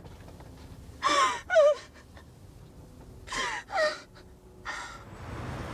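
A woman sobbing: short gasping cries with a wavering, falling pitch, two together about a second in, two more about three and a half seconds in, and a shorter one near the end.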